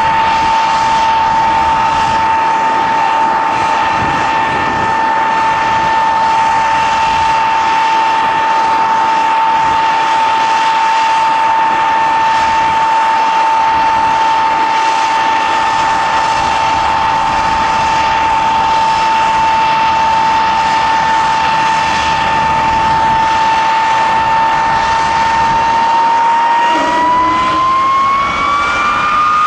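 De Havilland Vampire T.11's single de Havilland Goblin turbojet idling with a steady high whine over a rushing roar. About 27 seconds in, the whine rises in pitch as the engine spools up under more throttle, ready to taxi.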